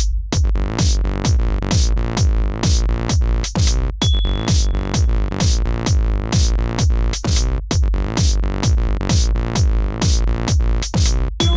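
Electronic dance music at about 130 beats a minute: a steady kick drum with sustained synthesizer chords, no vocals.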